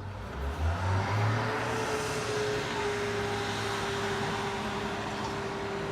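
Aircraft towing tractor's engine running as it pulls the F-2 jet, with a steady whine over a hiss that grows louder about a second in.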